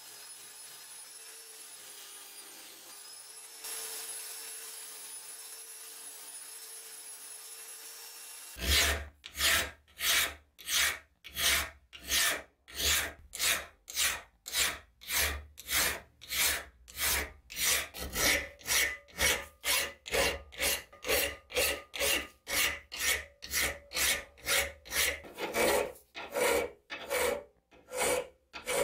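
A motor-driven wire wheel spinning with a steady hum, louder from about four seconds in as a rusty steel part of a gardening tool is pressed against it. After about nine seconds a hand file takes over, rasping across the steel edge of the part held in a vise in steady strokes, about two a second.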